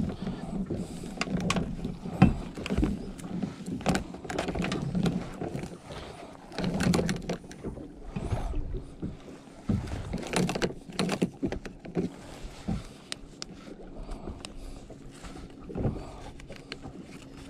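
Irregular clicks, knocks and rattles of crayfish traps and their line being handled at the side of a small boat, the line running over a metal line roller.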